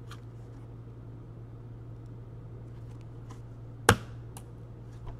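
Sharp single click about four seconds in, from hands handling cards at a metal card tin, with a few faint handling ticks before it. A steady low electrical hum runs underneath.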